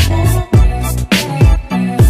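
Background music: a hip hop beat with deep booming kick drums that drop in pitch, sharp snare hits and held bass notes.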